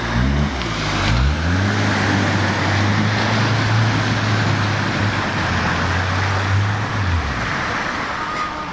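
Old car's engine revving in quick bursts, then held at high steady revs for about six seconds before easing off near the end, with a steady rushing noise behind it as the car drives off-road.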